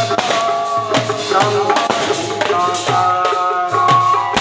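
Music with a steady drum beat under a melody of held notes that step from pitch to pitch.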